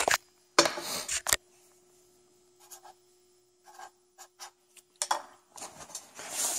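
Clicks and rustling of handling, then a Sharpie felt-tip marker making a series of short, faint scratchy strokes as it writes a number on blue painter's tape, with more handling noise near the end.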